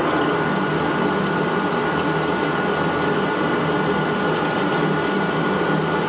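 CNC lathe turning a metal bar under flood coolant: steady cutting and spindle noise with a thin, high, steady whine from the cut, over the splash of the coolant jet.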